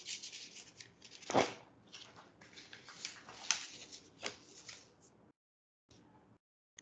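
Faint irregular rustling and crackling, with a few sharp clicks, stopping about five seconds in.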